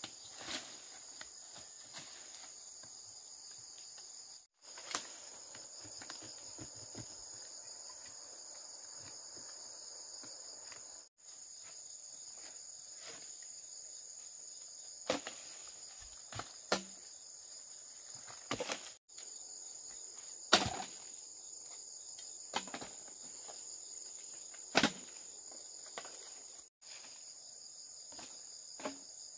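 Steady high-pitched chorus of insects, crickets among them, with scattered knocks and thumps from work, the loudest about twenty seconds in. The sound cuts out completely for a moment four times.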